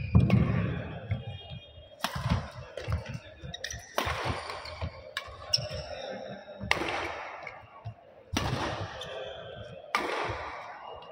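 Badminton rally: rackets striking the shuttlecock about seven times, one hit every one and a half to two seconds, each with a short echo in the hall. Between the hits, players' shoes squeak and thud on the court mat.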